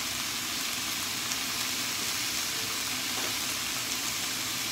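Sliced fuki (Japanese butterbur) stalks and onion sizzling steadily in a frying pan.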